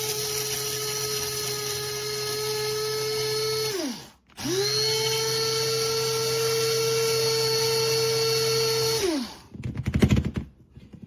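Proctor Silex electric blade coffee grinder running on coffee beans: a steady high whir that spins down and stops about four seconds in, starts again straight away, then spins down once more after about five seconds. A few knocks follow near the end.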